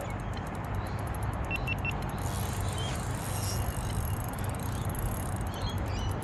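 Rapid fine clicking of a fishing reel as a hooked bream is played in, in a run for about two seconds and again near the end, over a steady low rumble.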